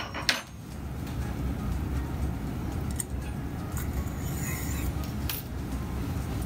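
Metal surgical instruments clicking as a positioning guide is worked inside a metal insertion tube: one sharp click about a third of a second in and a few lighter clicks later, over a steady low hum.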